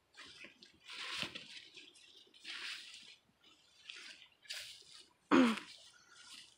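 Large gourd leaves rustling and brushing against the phone in a series of short, irregular bursts as it moves through the foliage. About five seconds in comes one brief, louder sound with a short pitched note in it.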